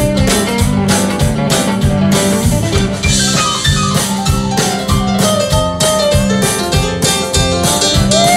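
Live band playing an instrumental passage: drums keeping a steady beat under electric guitar and other sustained, sliding instrument lines.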